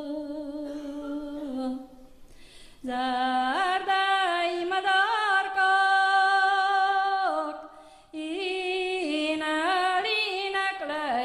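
A woman singing a slow Hungarian folk song unaccompanied, holding long notes with ornamented turns and vibrato. She breaks off briefly for breath about two seconds in and again about eight seconds in.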